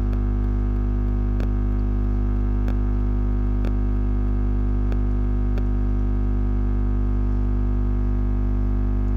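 Loud, steady electrical mains hum with a stack of harmonics, and about six faint ticks spread over the first six seconds.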